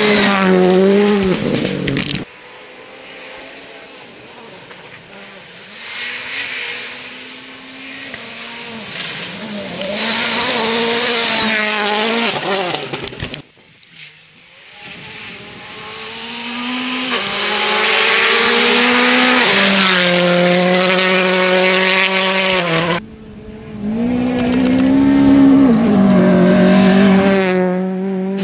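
Rally cars at speed on gravel stages, several separate passes cut together: engines revving hard, with the pitch stepping at gear changes and the sound swelling as each car approaches. The sound changes abruptly at each cut, about 2, 13 and 23 seconds in.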